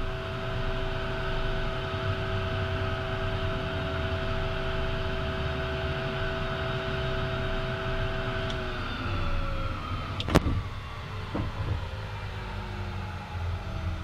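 The Beechcraft Premier 1A's twin Williams FJ44 turbofans are heard from the cockpit, running at idle with a steady whine over a low rumble. About eight and a half seconds in they are shut down and the whine falls in pitch as the engines spool down. A sharp click comes near ten seconds in, and a fainter one a second later.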